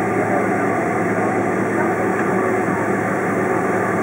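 Steady cabin noise inside a Boeing 767-400ER taxiing, with its jet engines running at low taxi power under an even rush and a low steady hum.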